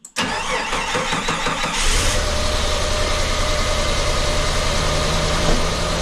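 Jeep Cherokee XJ engine being started: the starter cranks for about a second and a half, the engine catches with a brief rev about two seconds in, then settles into a steady idle. The idle comes right after the vacuum lines were replaced, and the owner judges it a lot better, though idling a little low.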